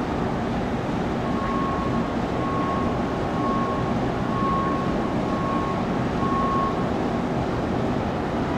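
A warning beeper on airport ramp equipment sounds six evenly spaced beeps, about one a second. Under it runs a steady low rumble from the apron.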